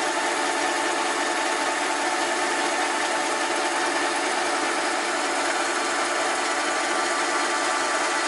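Small metalworking lathe running steadily, its motor and drive giving a constant mechanical hum and whine as it turns a slim rod between centres.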